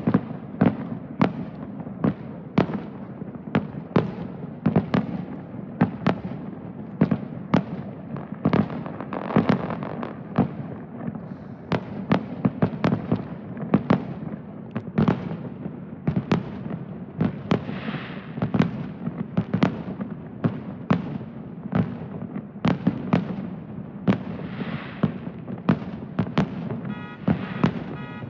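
Fireworks display: a steady barrage of aerial shell bursts, about one to two bangs a second, over a continuous rumble, with stretches of crackling from crackle shells.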